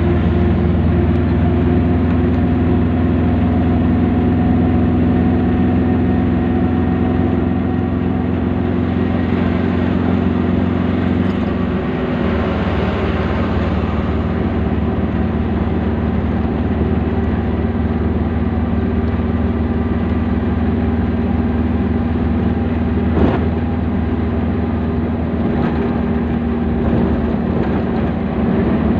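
Steady drone of a vehicle's engine running, its note changing about twelve seconds in, with one short sharp click a little after twenty-three seconds.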